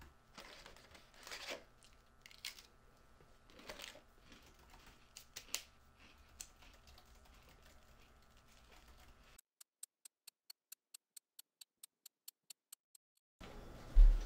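Sparse typing on a keyboard with a few louder noises in between. About nine seconds in it cuts off, leaving silence broken only by an even ticking, about five ticks a second.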